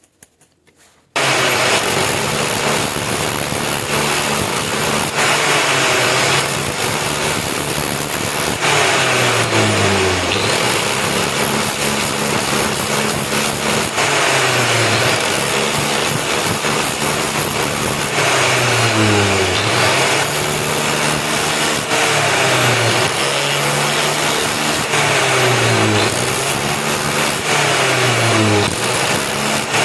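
An electric power tool switches on about a second in and runs loud and steady. Its motor pitch dips and recovers roughly every two seconds, as when it is loaded by work pressed against it during rust removal or polishing.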